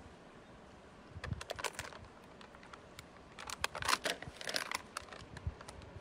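Thin plastic crinkling and clicking as a plastic water bottle and cup are handled, in two bursts: a short one about a second in and a longer, louder one from about three and a half seconds in.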